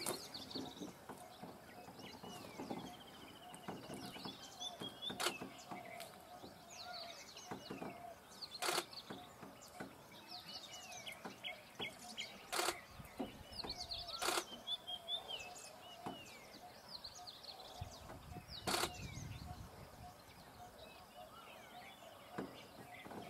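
Wild birds chirping and calling in scrub forest over a faint steady drone, with a handful of sharp snaps and a brief low rumble a little after the middle.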